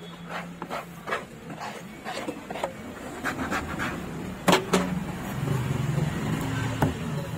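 A large knife chopping red snapper into pieces on a wooden log block: a run of light knocks, with two louder chops about four and a half seconds in and another near the end. A low steady hum sits underneath in the second half.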